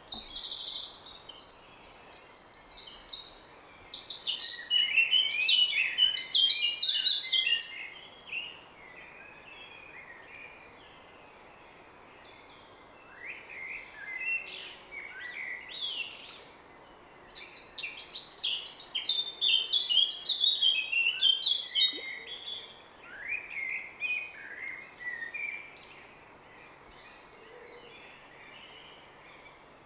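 Songbirds singing: a long bout of quick, high, sweet notes at the start, a few scattered calls in a quieter stretch, then a second long bout in the middle of the clip, over a faint outdoor hiss.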